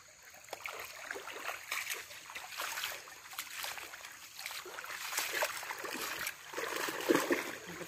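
Water sloshing and splashing in uneven bursts as someone wades step by step through a shallow river.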